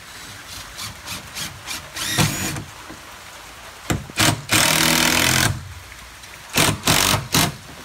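Cordless drill driving a screw through a door jamb in stop-start trigger bursts. The motor whines up about two seconds in, runs steadily for about a second near the middle, and gives a few quick bursts near the end.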